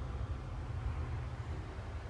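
Engine running steadily, a low rumble that flickers rapidly.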